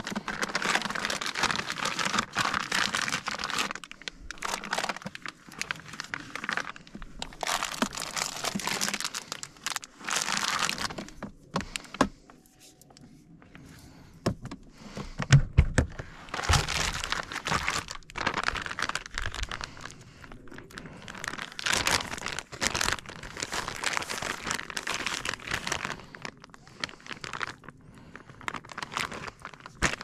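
Plastic food packaging and bags crinkling and rustling in repeated bursts as groceries are handled and pulled from a cooler, with a few heavy thumps about halfway through.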